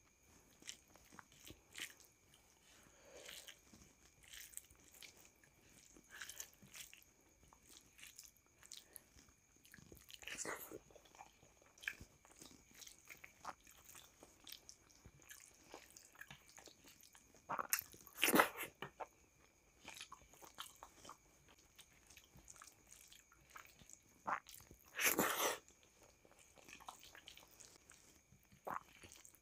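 Close-miked eating of rice and dal by hand: soft wet chewing and mouth clicks, with fingers squishing rice and dal on a plate. Three louder, longer eating sounds stand out about ten, eighteen and twenty-five seconds in.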